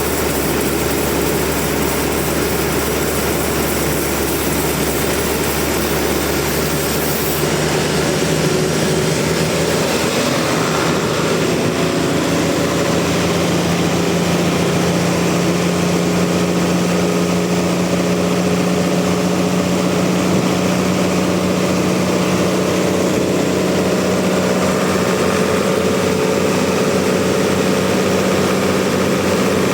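Sawmill machinery running steadily with a continuous engine-like drone. The low rumble drops away about seven seconds in, and a steadier, higher hum then holds.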